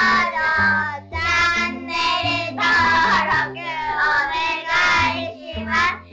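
Cheerful sung jingle: a high, childlike voice singing over a bass line that steps from note to note, pausing briefly about a second in and again near the end.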